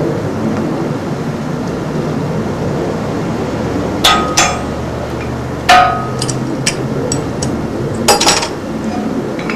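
A series of sharp, ringing metal clinks and clanks as a brake master cylinder held in pliers knocks against a small metal oven while being placed inside; the loudest come about four and six seconds in and again near eight seconds, over steady background noise.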